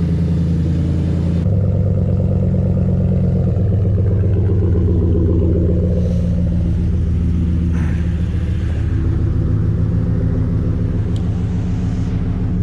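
Ford F150's 5.0-litre V8 idling steadily, its pitch stepping slightly about a second and a half in. The engine is running normally again, its no-crank/no-start fault cured.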